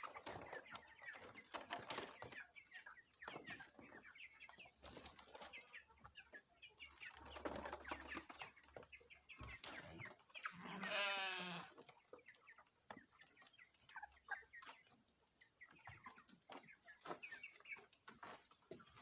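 A flock of chickens clucking softly with scattered short calls, and one louder, drawn-out call about eleven seconds in.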